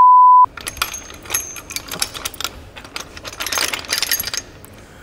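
A steady censor beep cuts off about half a second in, followed by a run of light metallic clinks and rattles of tools and bolts at work on an engine and its engine stand.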